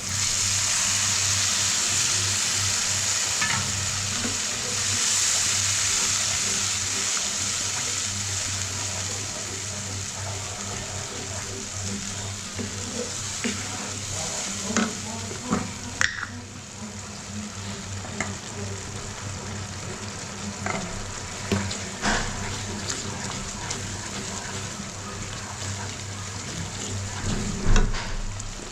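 Ground spice masala frying and sizzling in hot oil in a pan while a spatula stirs it, scraping and tapping against the pan now and then. The sizzle starts suddenly and is loudest in the first few seconds, then slowly dies down.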